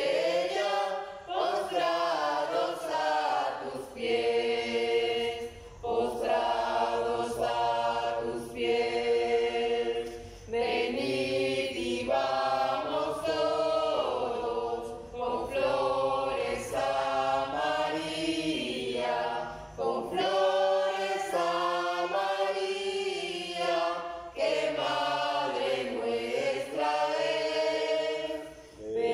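A choir singing unaccompanied, in long held phrases with short breaks between them.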